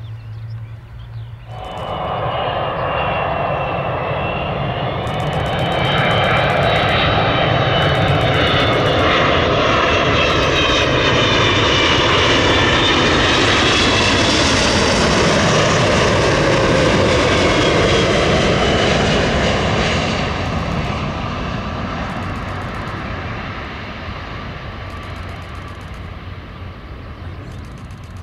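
Boeing 777-200ER jet airliner flying low overhead on final approach. The engine noise swells about two seconds in, with whining fan tones that bend in pitch as it passes, then slowly fades as the aircraft heads down to the runway.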